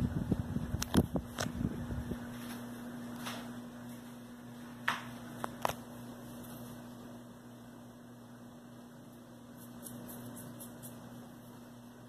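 Old Loren Sid four-blade ceiling fan running with a steady electric motor hum, on a replaced bearing. For the first two seconds a low rumble of wind or handling on the microphone covers it, and a few sharp clicks come about a second in and again about five seconds in.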